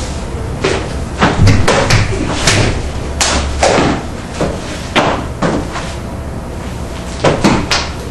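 A person's body falling and flopping about on a wooden floor: a run of thumps and slaps starting about half a second in, then a few more near the end, over a steady background hiss.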